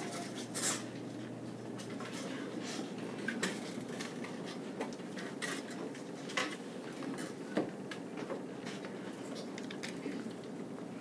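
Classroom room noise: a low steady murmur with scattered light clicks and taps, a few sharper ones standing out.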